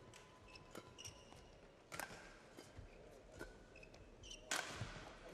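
Faint badminton rally: rackets striking a shuttlecock about every one to one and a half seconds, with short shoe squeaks on the court. The loudest stroke, a jump smash about four and a half seconds in, is followed by a brief burst of noise.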